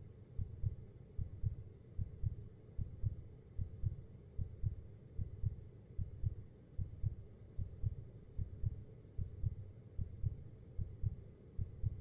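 Heartbeat sound effect: low, muffled double thumps (lub-dub) repeating in a steady, even rhythm.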